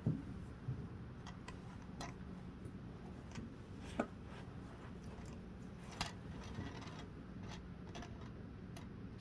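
Scattered small plastic clicks of Lego pieces being handled and pressed together, a few seconds apart, the sharpest near the start, about four seconds in and about six seconds in, over a faint steady low hum.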